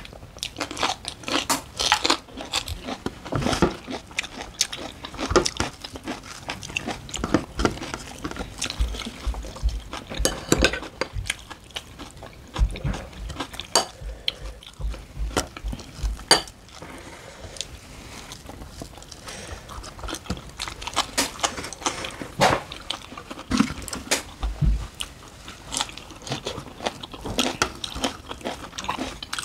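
Close-up eating sounds: crunching bites into raw green vegetables and wet chewing, in irregular snaps and crackles, with an occasional clink of a spoon on a plate.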